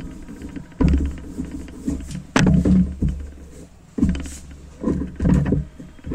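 Wooden rolling pin rolled back and forth over paratha dough on a rolling board, a low rumbling scrape with each stroke, about five strokes.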